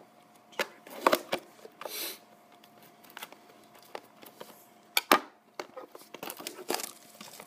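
Scattered clicks and taps from hands handling a cardboard hockey card box, with a short rustle about two seconds in and a louder knock about five seconds in.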